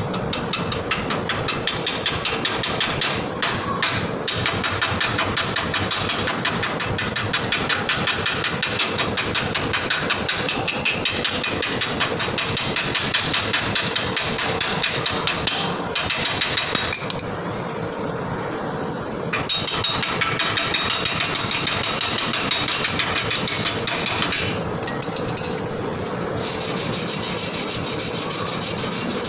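Stick welding arc crackling steadily as a bead is run along a lap joint. The crackle eases for a couple of seconds past the middle, then picks up again.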